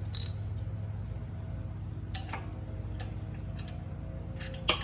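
Scattered sharp metal clicks and clinks of a wrench working the mini bike's exhaust mounting bolts, with a quick cluster near the end, over a steady low hum.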